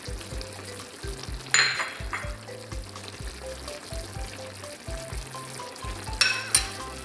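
Spoon stirring chickpeas into a simmering tomato-based chicken stew in a pan, with a loud short scrape about a second and a half in and two more near the end. Background music with a steady beat plays throughout.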